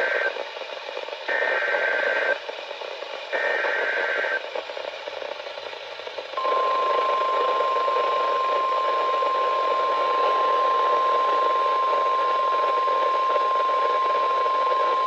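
Emergency Alert System signal from NOAA Weather Radio, heard over radio hiss. A data-header burst cuts off just after the start, then two more one-second warbling bursts follow about a second apart. About six seconds in, a steady 1050 Hz warning alarm tone begins and holds, signalling that a warning message is about to be read.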